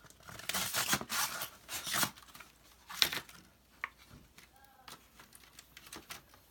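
Aprilaire humidifier pad being handled and fitted into its plastic frame: rustling and scraping, with a sharp click about three seconds in and a few lighter ticks after.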